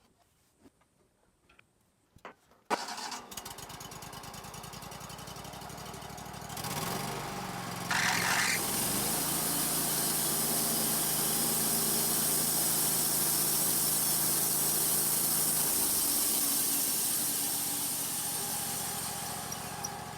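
Wood-Mizer LT35 sawmill engine starting a few seconds in and running steadily. It speeds up around seven seconds, and a loud, bright hiss joins it. Near the end the engine slows and winds down.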